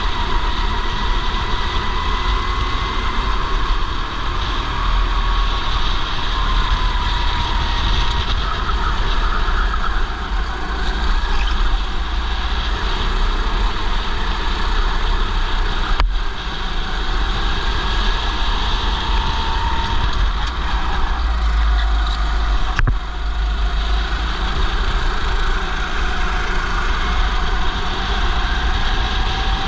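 Go-kart engine running under the driver, its pitch rising and falling with the throttle through the corners, with other karts running close by and heavy wind rumble on the helmet-mounted microphone. Two sharp knocks, about halfway and two-thirds through.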